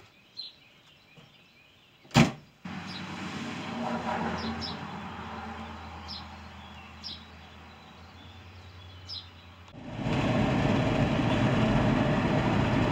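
A single loud thump a couple of seconds in, then a vehicle engine running steadily. From about ten seconds in, loud steady road and engine noise from inside a car's cabin at highway speed.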